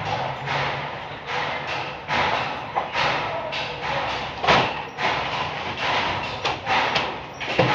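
A heavy filled sack being heaved and dropped onto a truck's cargo floor: irregular scraping and handling noise, with a sharp thud about halfway through and another near the end.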